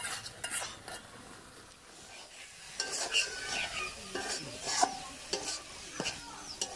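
A metal spatula stirs and scrapes prawn bhuna around a metal karai while the curry sizzles as it fries down. The scraping eases off for a moment and picks up again from about three seconds in.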